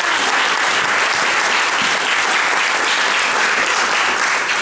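Audience applauding, a steady continuous clapping.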